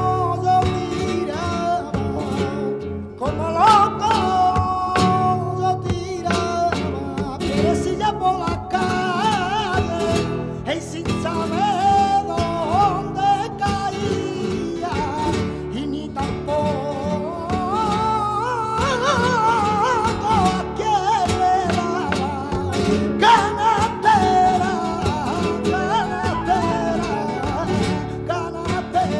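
Flamenco song: a male singer's wavering, ornamented voice over flamenco guitars plucked and strummed.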